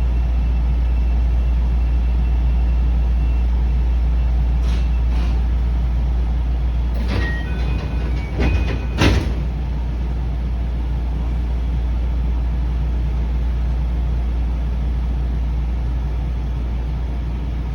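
JR West 221 series electric train's door chime sounding as short high tones between about seven and nine seconds in, with the sliding doors working and a sharp thud just after nine seconds. A steady low hum from the train runs underneath.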